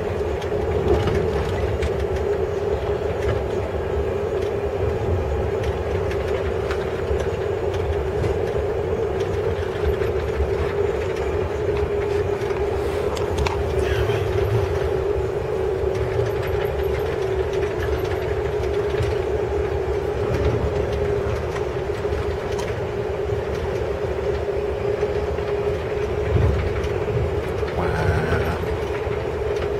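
Running noise of a moving Amtrak passenger train heard inside a sleeping-car room: a steady low rumble with a steady hum over it and a few light clicks.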